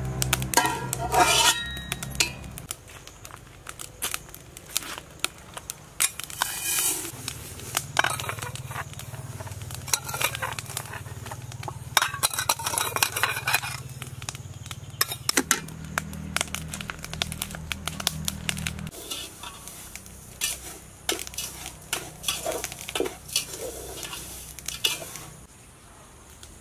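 Metal ladle and bowl clinking and scraping against an aluminium cooking pot, with a hiss of sugar being poured into the pot around the middle. Soft background music with low held notes underneath.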